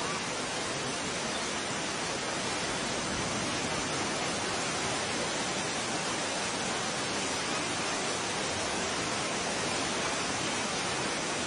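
Steady, even rushing hiss like heavy falling water, with no separate bangs or rumbles; it swells slightly over the first few seconds.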